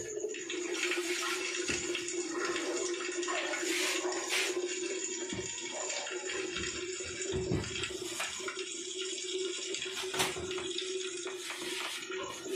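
A steady hum on one pitch under a hiss, with a few short knocks: around four seconds in and again near ten seconds.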